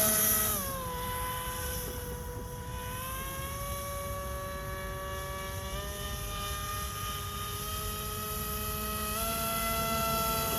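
RC airboat's Roxxy 36-42 930kv brushless electric motor spinning a 9x5 three-blade propeller in a prop ring, a steady whine. It drops in pitch when throttled back about half a second in, then climbs again in small steps near the middle and near the end.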